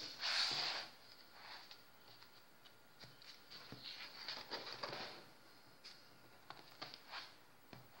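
Paper pages of a colouring book being turned by hand: a louder rustle of paper in the first second, then faint rustles and soft sweeps of pages.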